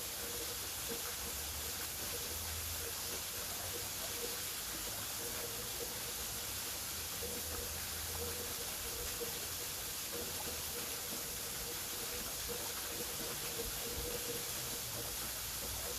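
Waterfall rushing in a steady, even hiss, with a faint low rumble underneath.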